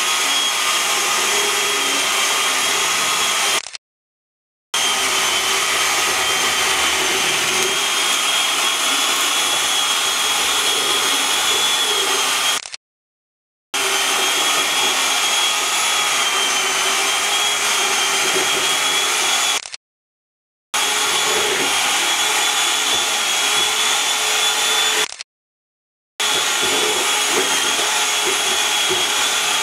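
Handheld electric mixer running steadily, beating fritter batter in a plastic bowl, a motor whine with a slightly wavering pitch. The sound drops out completely for about a second four times.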